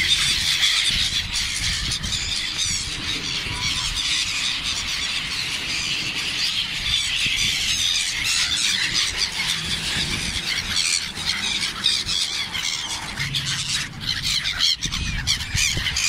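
A large flock of black-headed gulls calling all at once: a dense, unbroken chatter of many overlapping high squealing calls as the birds crowd in to be fed bread.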